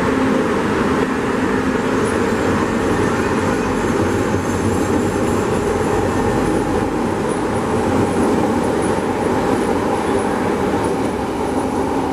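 CTA Blue Line subway train running along an underground station platform as it pulls out: a steady rumble of wheels on rail, with a thin high whine over it from about two seconds in.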